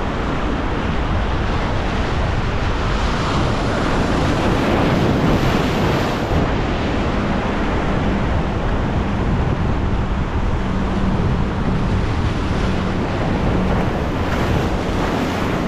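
Ocean surf washing steadily against the shore, with wind on the microphone.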